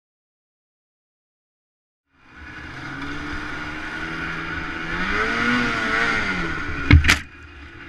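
Snowmobile engine coming in after about two seconds of silence and running, its pitch rising and falling as it is revved. A sharp bang about seven seconds in, after which the engine sound drops away.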